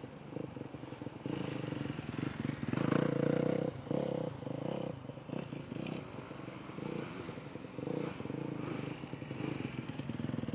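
Motocross dirt bike's engine revving up and backing off as it is ridden through a turn, loudest about three seconds in.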